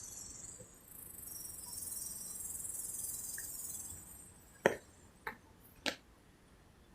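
A high-pitched insect buzz, like crickets or cicadas, for the first four seconds or so, then three sharp clicks about half a second apart, the first the loudest.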